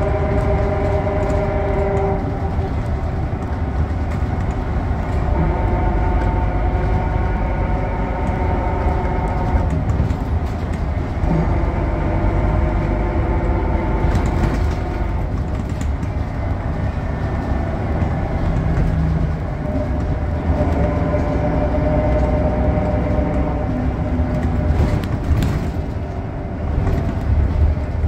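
Scania K94UB bus's rear-mounted diesel engine and ZF Ecomat automatic gearbox heard from inside the cabin while the bus drives, over a steady low road rumble. The engine note rises and falls several times as the bus accelerates and changes speed.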